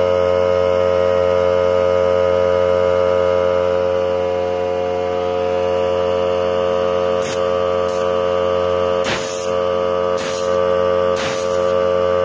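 Hyper Tough 3-gallon oil-free air compressor running steadily with a buzzing hum. From about seven seconds in there are five short bursts of hiss.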